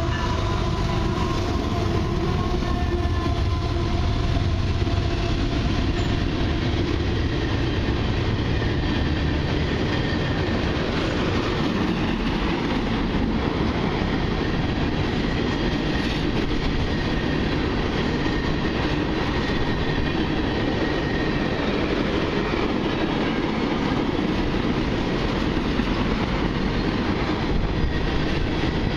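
A long freight train of empty crude-oil tank cars rolling past at speed, a steady rumble and clatter of steel wheels over the rail joints. The trailing Canadian Pacific diesel locomotive's engine passes in the first couple of seconds, and faint high wheel squeal comes through at times.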